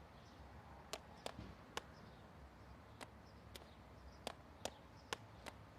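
Near silence: a low steady hiss with about ten faint, sharp clicks at irregular intervals.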